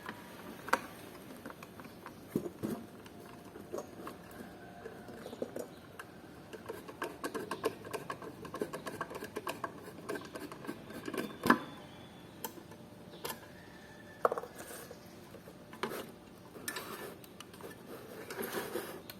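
Irregular clicks, taps and light scrapes of small plastic and metal parts of a solar light being handled and worked on, with a few short squeaky rubbing sounds. The sharpest clicks fall about a third and about three fifths of the way through.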